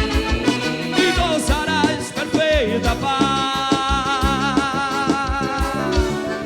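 Live forró band music with a singer's voice, over a steady kick-drum beat. About halfway in, a long note with vibrato is held until near the end.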